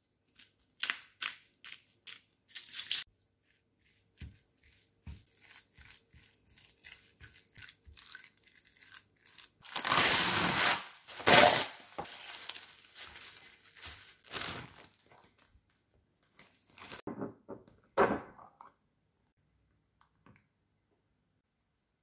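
A pepper grinder twisted in short grinding bursts, then plastic cling wrap pulled off its roll and torn, crinkling loudly, with more crinkling as the sheet is laid down near the end.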